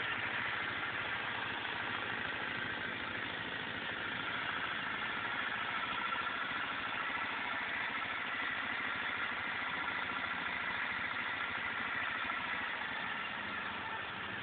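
1984 Honda Elite scooter's four-stroke single-cylinder engine idling steadily, with no revving.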